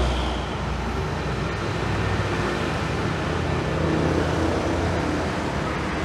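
Steady noise of running vehicle engines, a low hum with a hiss above it, like road traffic.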